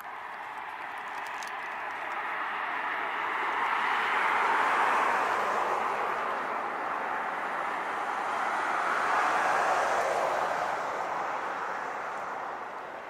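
Passing road traffic: the noise of vehicles going by swells to a peak about four seconds in, eases off, swells again near ten seconds and then fades.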